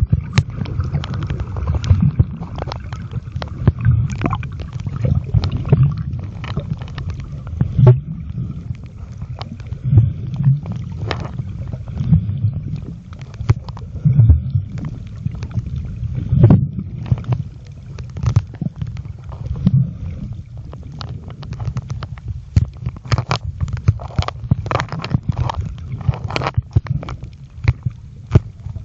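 Water sounds picked up by a mobile phone's microphone filming underwater: a muffled, low, surging rumble and gurgle, with frequent irregular clicks and knocks.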